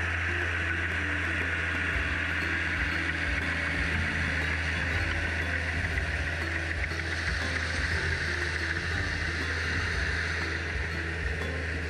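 Farm tractor's engine running steadily, a constant low drone.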